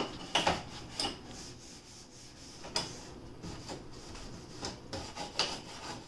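A rag rubbing and scrubbing the inside surfaces of a refrigerator in uneven strokes, a few of them sharper and louder.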